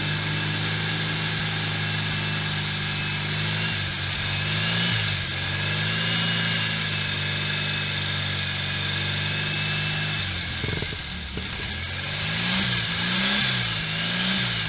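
Volkswagen 1.6-litre air-cooled flat-four boxer engine running on a stand through short open exhaust pipes, with its speed raised and dropped at the carburettor. It revs up and down a few times about four to six seconds in, dips and stumbles briefly about ten seconds in, then is blipped several times near the end.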